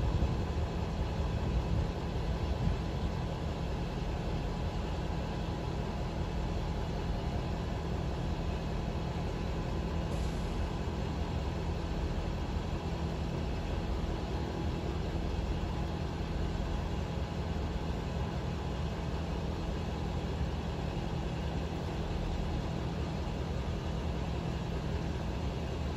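2011 Ford F-450 dump truck running steadily at idle while its hydraulic hoist lowers the dump bed, a little louder for the first couple of seconds.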